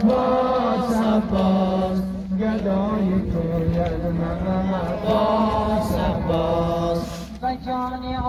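A man chanting an Ashura mourning lament (noha) in long, drawn-out phrases, his voice holding and bending each note, with a short break about seven seconds in.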